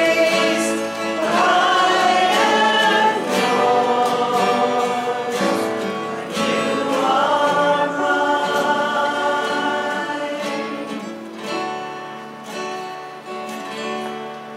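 Group of voices singing a worship song together, dying away over the last few seconds.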